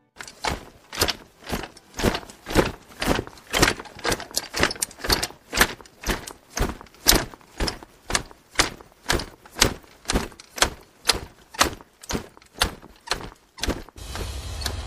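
Marching footsteps in unison, sharp even steps about two a second. Music with drums comes in near the end.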